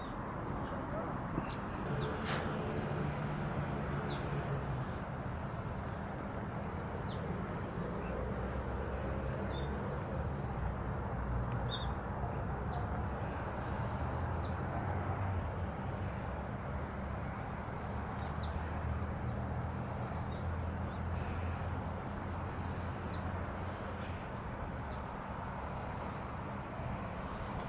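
Small birds giving short, high chirps that slide downward, scattered singly and in small groups, over a steady low background rumble.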